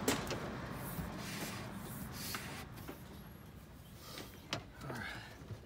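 Rubber hydraulic hoses and grommets being handled and pushed through openings in a fiberglass boat hull: a few scattered light knocks and clicks with some rubbing.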